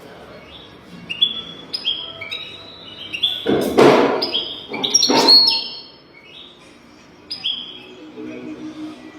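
European goldfinch singing: a run of short, sharp chirps, each sliding downward in pitch. Two louder noisy bumps come about three and a half and five seconds in.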